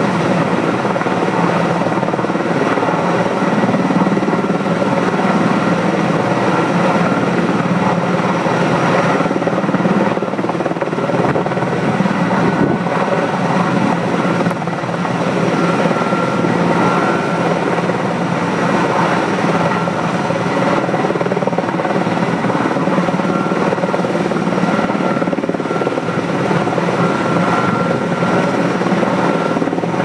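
Heavy-lift sky-crane helicopter hovering and holding a transmission-tower section on its line: steady, loud rotor and turbine noise with a high whine running through it.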